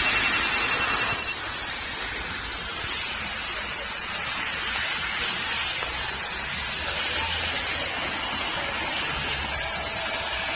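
Steady hiss of city street traffic at a busy intersection. Faint melodic tones start near the end as the melody pedestrian signal begins to play.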